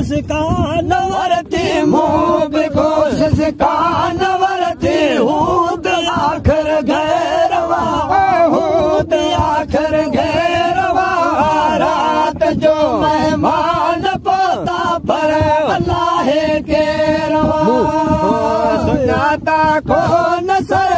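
Male voices chanting a devotional molud (mawlid) song in unison over a steady held drone note, with no break.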